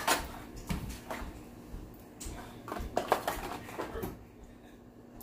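Cooked shellfish shell being cracked and peeled apart by hand, a run of scattered small clicks and crackles that thins out near the end.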